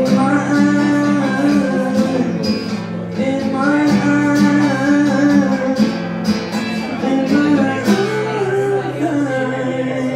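Live solo performance: a nylon-string classical guitar playing the song's closing bars, with held low notes, and a man's voice singing a wordless line over it.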